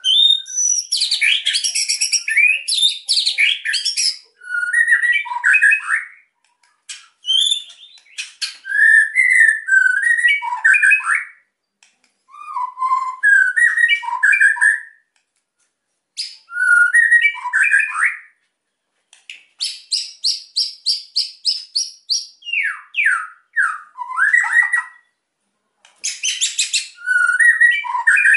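White-rumped shama (murai batu) singing in bursts of quick, varied whistled phrases with short pauses between them. About two-thirds of the way through comes a rapid even run of repeated chattering notes, followed by a few falling notes.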